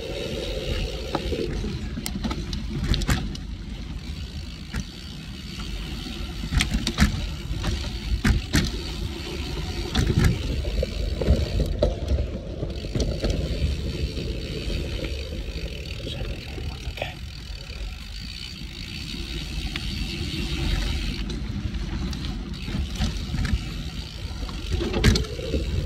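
Cervelo Aspero gravel bike's 650b wheels on 47c tyres rolling fast over a dirt singletrack, a steady low rumble and rush. Sharp clacks and rattles come every few seconds as the bike hits bumps, roots and rocks.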